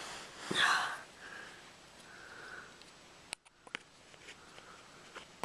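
A sharp nasal sniff about half a second in, followed by a few faint clicks and taps of small objects being handled.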